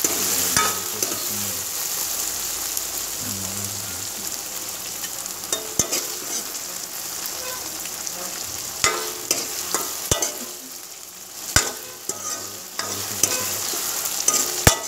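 Chopped onion, green chilli and garlic sizzling steadily as they fry in oil in a metal kadhai, on their way to golden. A metal ladle stirs and scrapes through them, knocking sharply against the pan every few seconds.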